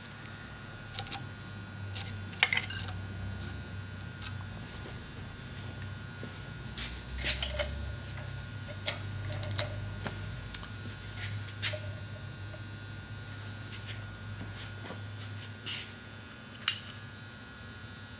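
Steel saw chain clinking and clicking at irregular moments as it is fed onto the sprocket of a raker grinding machine, over a steady electrical hum.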